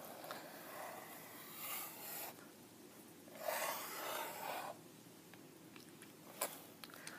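Sharpie fine-point marker drawn across paper in two long scratchy strokes, the second louder, then a single short tap about six and a half seconds in.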